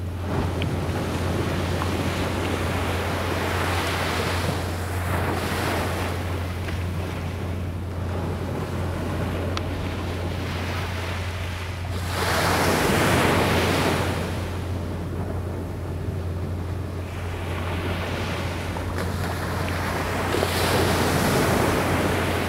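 Small waves breaking and washing up a beach, the surf swelling and fading three times, about every eight seconds. A steady low hum lies underneath.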